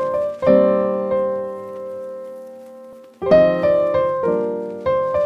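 Background piano music: a chord struck about half a second in and left ringing for more than two seconds, then a quicker run of chords.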